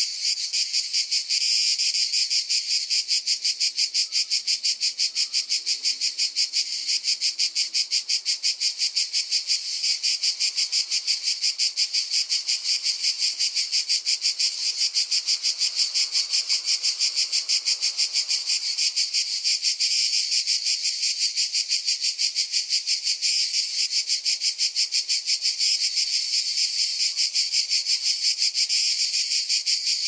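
A cicada singing at close range: a loud, high-pitched buzz made of rapid, even pulses that runs on without a break.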